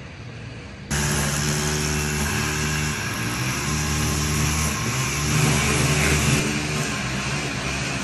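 A motor vehicle's engine running close by over street noise, its pitch shifting a few times. The sound comes in abruptly about a second in, as from a cut in the recording.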